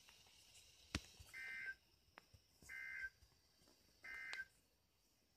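A sharp click, then three short identical bursts of warbling two-tone data from a NOAA Weather Radio, each about a third of a second long and about 1.3 s apart. These are the Emergency Alert System SAME end-of-message code that closes a warning broadcast.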